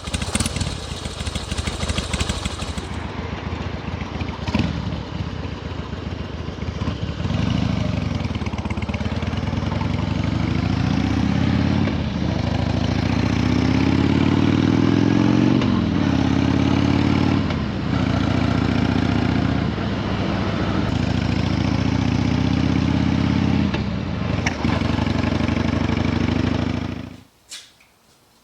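Carbureted Harley-Davidson Twin Cam 88 V-twin with Screamin' Eagle mufflers running, the throttle opened and closed over and over so the revs rise and fall about every two seconds. The sound cuts off suddenly near the end.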